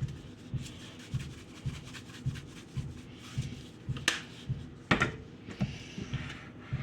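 Seasoning shaker shaken over raw ground chicken: soft, even shakes a little under two a second, with two sharp clicks about four and five seconds in.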